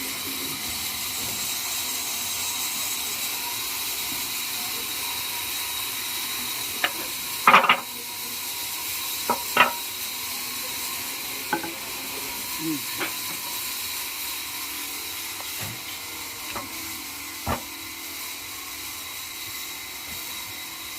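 Steady high hiss of sawmill machinery with a thin, steady whine, broken by scattered sharp knocks and clacks of wood being handled, the loudest about a third of the way in.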